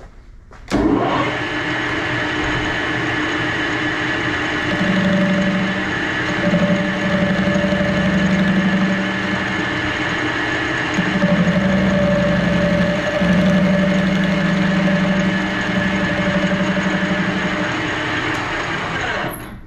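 Metal lathe spindle starting up about a second in and running steadily, with a carbide turning tool facing the rough weld-built-up end of a steel shaft. The cut is heard in several stretches from about five seconds in until nearly the end. The lathe then shuts off just before the end.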